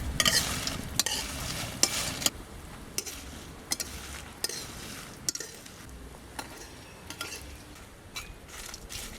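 Dried fish and dried red chillies being stirred and scraped around a hot aluminium pan as they dry-roast, in irregular scrapes and taps with a light sizzle.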